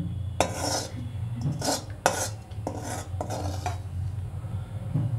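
Steel ladle scraping browned milk solids left from making ghee off the inside of a steel bowl: about five short scraping strokes in the first four seconds. A steady low hum runs underneath.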